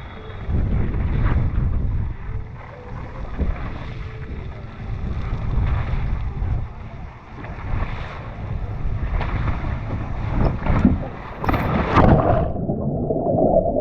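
Water rushing down a waterslide with wind buffeting the microphone and scattered knocks along the ride. Near the end the sound turns suddenly muffled, as at a plunge into the pool.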